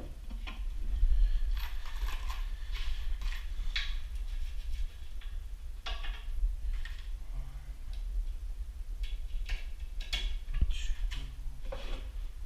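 Irregular light clicks and taps of cabinet hardware and tools being handled, over a steady low rumble.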